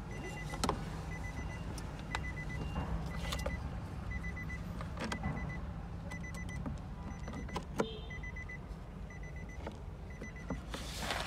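Short groups of electronic beeps repeating about once a second over a steady low hum, with scattered clicks and knocks and a brief loud rush of noise near the end.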